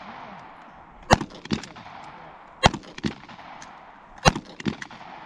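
Gunshots from competitors firing at a shooting range: three loud, sharp shots about a second and a half apart, each followed less than half a second later by a fainter shot.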